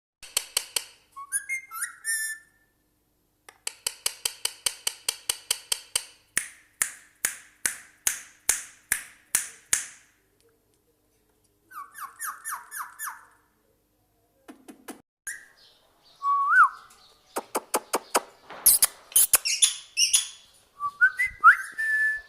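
Parrot calling: runs of quick, evenly repeated chirps, a few short rising whistles, and louder, harsher calls near the end.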